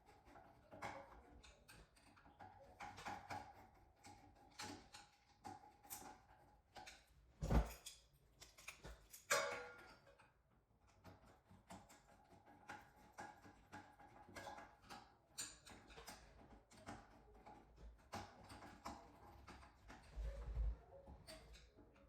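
Small metal clicks and taps of ceiling fan blade brackets and their screws being handled and screwed on, scattered throughout, with two louder knocks a little past seven and nine seconds in and a dull thump near the end.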